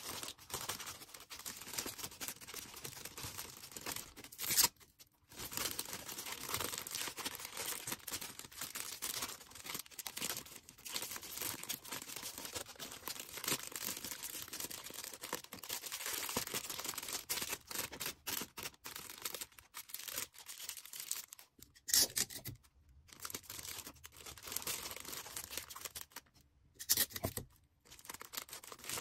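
Plastic packaging being handled while an order is packed: continuous crinkling and rustling with tearing sounds, broken by a few brief pauses.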